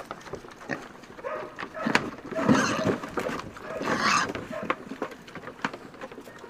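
Pigs eating from a trough: wet chomping and crunching, short grunts, and two louder snorting outbursts about two and four seconds in.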